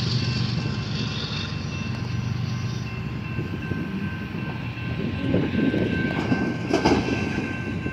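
Diesel freight train approaching a railroad grade crossing, a steady low rumble, with the crossing signal bells ringing as a thin steady tone. A couple of thumps come near the end.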